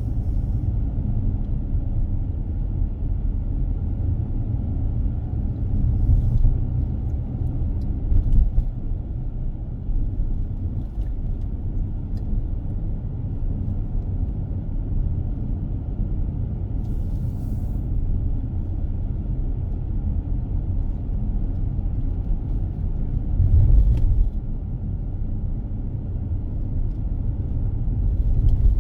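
Car driving on a road: a steady low rumble of tyres and engine, with a few brief louder thumps about six, eight and twenty-four seconds in.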